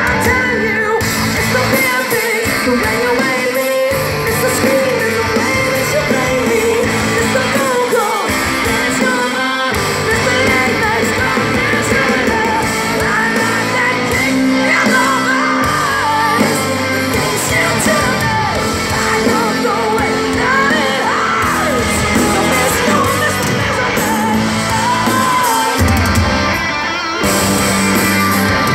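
Live rock band playing loud in a large hall: a singer with yells over electric guitar and drums.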